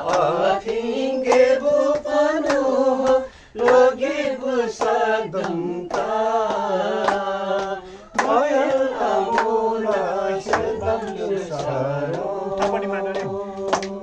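A group of men and women singing a Lepcha song together in long, drawn-out notes, with hand claps.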